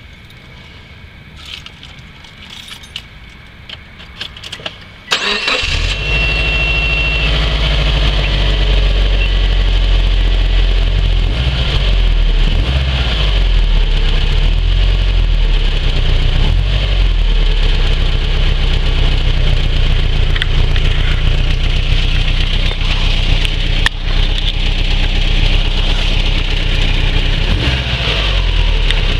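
The 2004 Subaru Forester XT's turbocharged flat-four cranks and catches about five seconds in, then idles steadily with a clicking/ticking from under the hood. The uploader traced the tick to the catalytic converter inside the stock up-pipe breaking apart.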